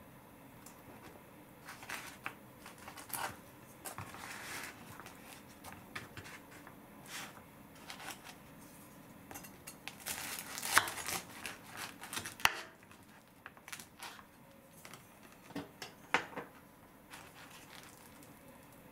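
Knife crunching through the crisp toasted crust of a pressed sandwich and knocking on the wooden cutting board, in scattered crackles and clicks, the sharpest about halfway through. Near the end, the crusty pieces of the egg-salad sandwich torn apart by hand.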